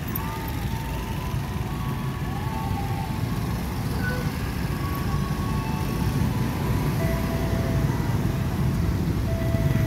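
Motorcycles and scooters riding past in a steady stream of traffic, a continuous engine drone that grows slightly louder toward the end. Faint music plays over it.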